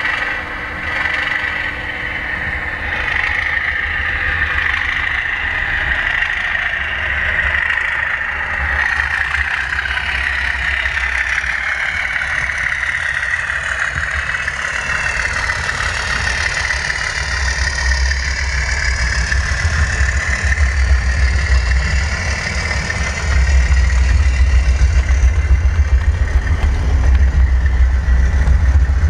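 OO gauge model train, a Class 37 diesel locomotive hauling coaches, running along the track: a steady low drone with a high whine, growing louder about three-quarters of the way through as the train passes close.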